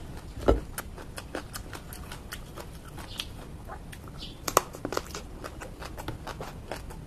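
Close-up eating sounds: crisp biting and chewing of a raw small round Thai eggplant, with many small crunching clicks. A single knock about half a second in, and a sharp crunch cluster around four and a half seconds in as the eggplant is bitten.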